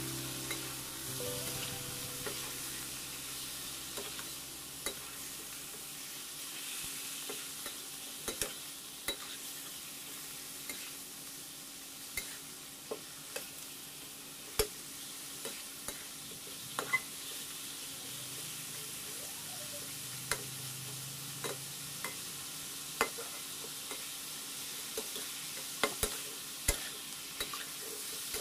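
Pork pieces sizzling as they brown in hot oil in a metal wok, with a steady hiss. A metal spatula scrapes and clinks against the pan in short, irregular knocks as the meat is stirred and turned.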